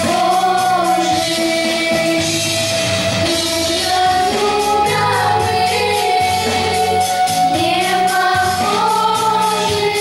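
Girls' vocal group singing a song together into microphones, with amplified instrumental accompaniment that keeps a steady beat.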